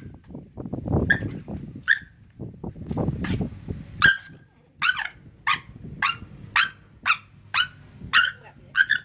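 Young dog barking at a foot waved in its face: a couple of yaps over lower rough noise at first, then a quick string of about ten sharp, high yaps, roughly two a second.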